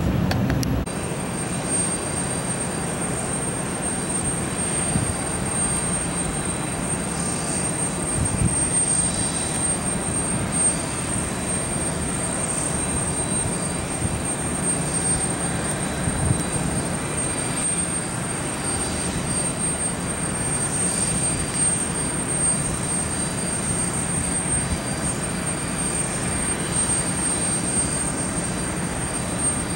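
Steady, even rushing jet engine noise of a twin-engine business jet on approach to land, with a thin high-pitched whine running along it. About a second in, the deeper, louder noise of a Boeing 737 climbing out cuts off.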